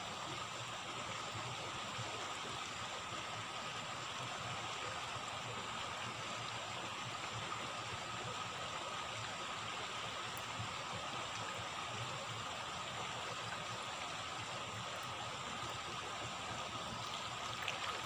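Steady rush of water from a small rain-swollen stream and waterfall, with rain falling on the water surface. Just before the end, a brief splash as a bamboo lift net is raised out of the water.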